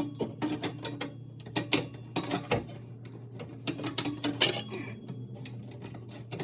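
Irregular metallic clinks and clanks of steel exhaust pipe sections and hardware being handled and fitted together, some with a short ring.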